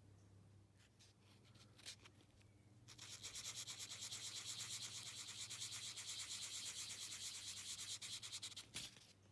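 Hand sanding: quick back-and-forth strokes of an abrasive rubbing against a surface, starting about three seconds in and stopping shortly before the end, after a few light clicks.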